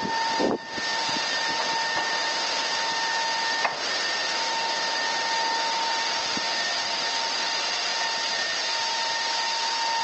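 Strong storm wind rushing steadily over an outdoor security camera's microphone, with a faint steady whine underneath.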